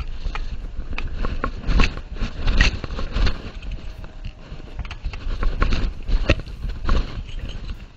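Cross-shaped lug wrench spun by hand on a wheel's lug nuts: irregular metallic clicks and knocks as the wrench turns on the nut.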